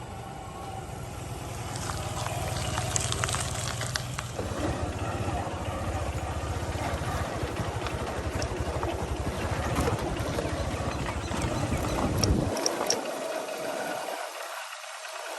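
JCB 3DX backhoe loader's diesel engine running with a steady low throb, with a few sharp clanks. About twelve seconds in, the low rumble cuts away abruptly.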